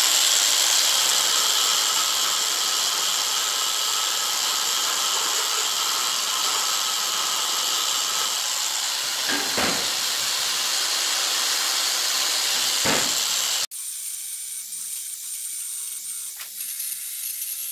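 Cordless narrow-belt sander running at a steady high whine as it grinds paint and rust off a steel motorcycle carrier down to bare metal. About 13.7 s in the level drops suddenly and the grinding goes on quieter.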